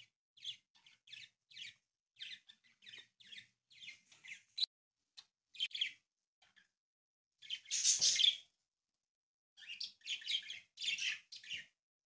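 A sheet of origami paper being handled and creased by hands, heard as a string of short, crisp rustles. A longer, louder rustle comes about eight seconds in.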